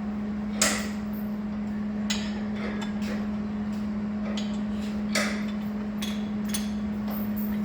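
Hand tools knocking and clinking on metal as engine-bay parts are unbolted, with about half a dozen irregular sharp strikes, the loudest about half a second in, over a steady low hum.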